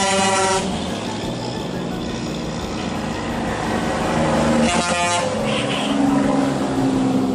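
Heavy diesel trucks running past close by, their engine note rising as the second truck approaches about five seconds in. A truck horn blast cuts off about half a second in, and a second short horn toot sounds about five seconds in.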